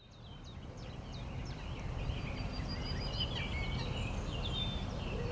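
Woodland birds chirping and singing, many short quick calls overlapping, over a steady low rumble of background noise; the sound fades in over the first second.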